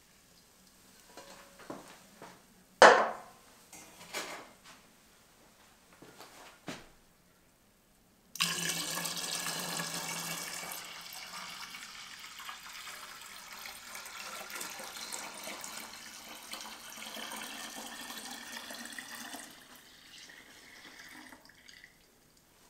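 Stainless steel pot handled against a plastic barrel, with a few knocks and one sharp clank about three seconds in. Then, from about eight seconds in, a steady stream of cooled sweet tea poured from the pot into the plastic fermenting barrel, slowly weakening and trailing off near the end.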